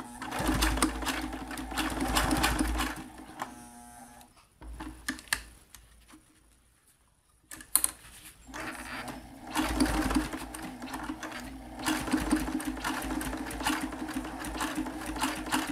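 A Singer 328K sewing machine stitching through layers of leather. It runs for about three seconds, stops with a few clicks in the middle, then runs steadily again through the second half.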